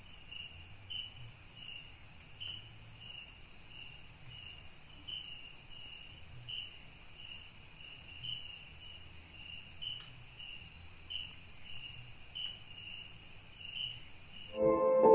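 Night-time insect chorus of crickets: a steady high-pitched drone with a short chirp repeated two to three times a second. Music starts abruptly near the end.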